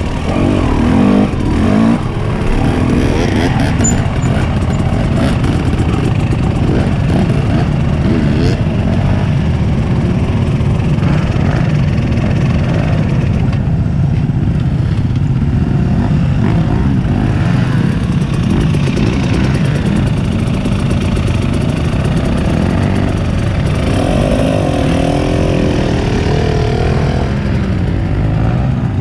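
Off-road vehicle engine running continuously while riding a trail, its pitch rising and falling with the throttle, with steady rumble and wind noise.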